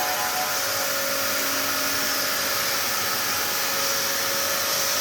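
Steady rushing, air-like noise with a faint hum, unchanging throughout.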